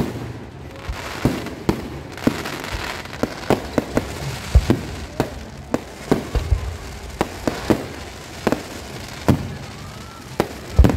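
Aerial fireworks display: shells bursting in a run of sharp, irregular bangs, about two a second.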